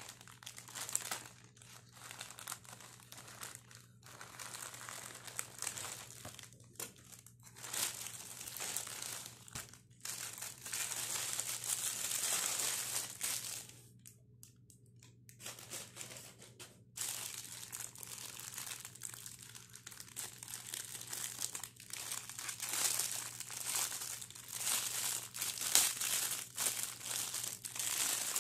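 Plastic packaging crinkling and rustling as hands handle and open it: a plastic courier mailer, then thin clear plastic wrappers. The noise comes in irregular spells, with a short lull about halfway through.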